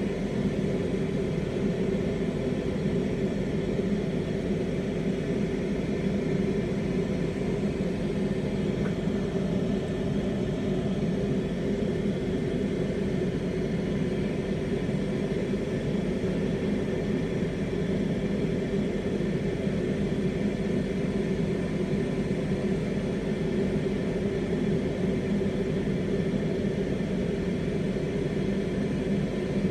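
Glassworking bench torch flame burning steadily, a constant low rushing noise with a faint steady hum, while borosilicate glass is heated in it.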